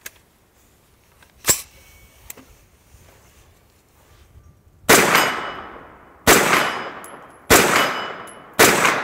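Faxon Bantam 9mm pistol-caliber carbine firing four shots of SIG Elite 115-grain ammunition at a slow, steady pace, about a second apart. Each report trails off in a long echo. A single sharp click comes before the shots.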